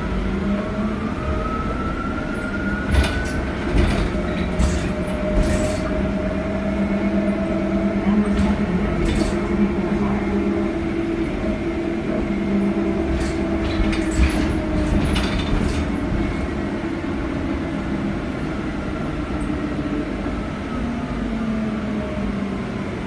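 Battery-electric transit bus under way, heard from inside: the whine of its UQM permanent-magnet drive motor rises in pitch as it accelerates during the first few seconds, holds while cruising, and falls again near the end as it slows. Sharp knocks and rattles from the body and fittings come in clusters over bumps.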